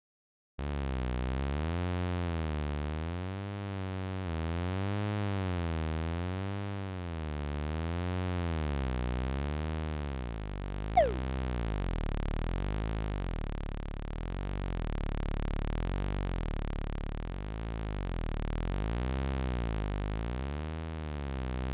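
Synthesized buzzing drone whose pitch slowly wavers up and down, about once every second and a half to two seconds. A quick falling zip effect sounds about eleven seconds in.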